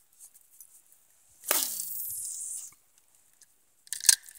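A fishing cast: a sudden whoosh with a falling sweep as the rod swings, and line hissing off the reel for about a second before it cuts off. A short sharp rattling click follows near the end.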